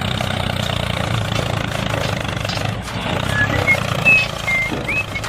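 A small vehicle motor running steadily with a low, even hum. A few short high chirps come in over it in the second half.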